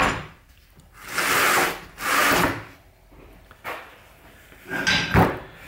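Rusty steel guide bars of a cast-iron woodworking vise being slid out through the jaw: two scraping slides of about a second each, then a click and a knock near the end.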